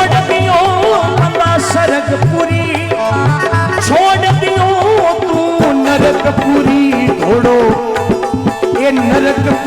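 Instrumental interlude of Rajasthani devotional folk music: an ornamented melody over a hand drum beating a steady rhythm of about two strokes a second.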